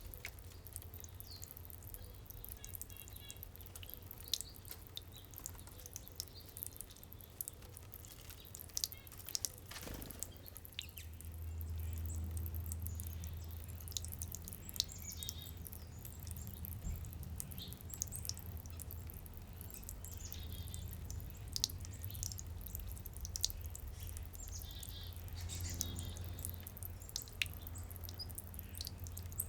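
Water dripping and trickling in a backyard fountain, with small birds chirping now and then. A low hum swells twice in the background.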